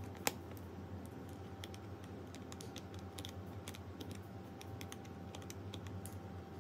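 Clicks from an Echolac suitcase's three-digit TSA combination lock being set: a sharp click just after the start, then a run of small irregular clicks as the number wheels are turned.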